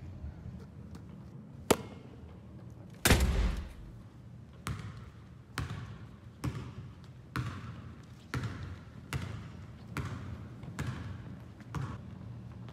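Basketball dribbled on a hardwood gym floor, about one bounce a second, each bounce ringing on briefly in the hall. A louder, longer thud comes about three seconds in.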